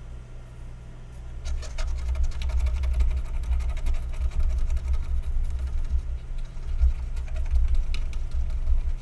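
A circuit board being scrubbed clean with isopropyl alcohol: rapid, scratchy rubbing with low knocks carried through the bench, starting about a second and a half in, over a steady electrical hum.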